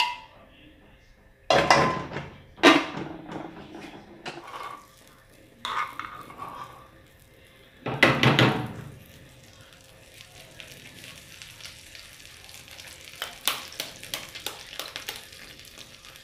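Cookware clattering: several loud clanks of a wooden spoon, a pot lid and a plate against an aluminium pot as the couve is stirred and covered. Then butter sizzling and crackling in a small frying pan, with light clicks of a spoon in the pan.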